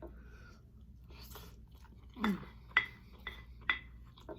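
Close-up mouth sounds of a person chewing chicken wings: wet smacks and sharp mouth clicks, with a short "mm" about two seconds in.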